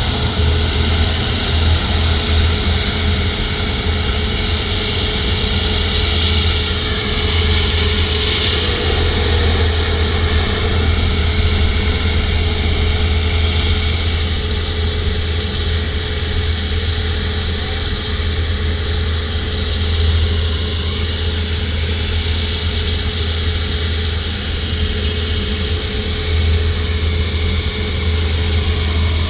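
Airbus A350's Rolls-Royce Trent XWB turbofan engines running steadily: a constant low rumble with a steady droning tone over it.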